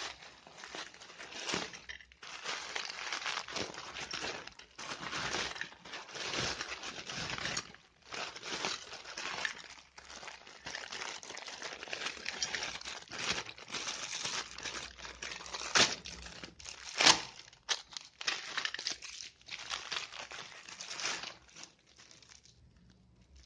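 Plastic packaging crinkling and rustling in irregular bursts as it is handled and opened, with two sharp crackles close together about two-thirds of the way through.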